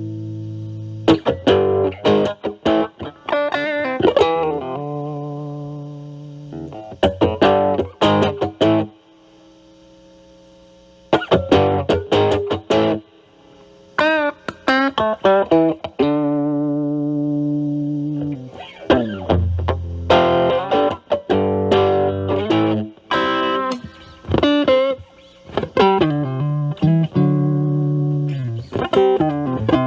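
Stratocaster with Alnico single-coil pickups played through an Ibanez Super Metal mini distortion pedal at high drive into a Marshall Valvestate clean channel: ringing chords and single-note phrases with vibrato, with a short pause about a third of the way in. Near the end the distortion cleans up as the guitar's attack is lightened.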